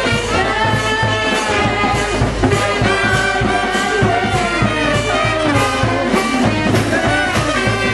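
Live brass marching band playing: saxophones, trombones, trumpet and sousaphone over snare and bass drums keeping a steady beat.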